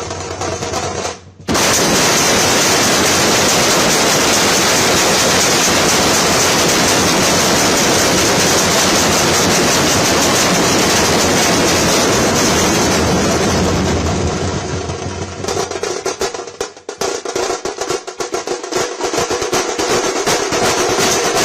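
Dhols played fast and loud in a dense, continuous roll. The roll breaks off briefly about a second in, and about two-thirds of the way through it thins into rapid separate strokes.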